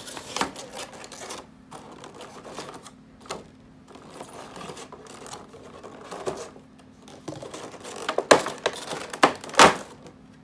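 Clear plastic blister-tray packaging and a plastic bag being handled: a run of crinkles, taps and clicks as tape is pulled off, with two louder sharp plastic knocks near the end.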